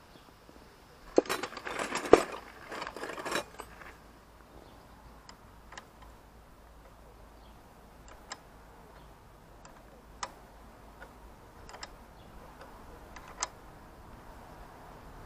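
Metal tools and fittings clattering for a couple of seconds, then a spanner clinking now and then against the bolt at a motorcycle side stand's pivot as it is fitted and tightened.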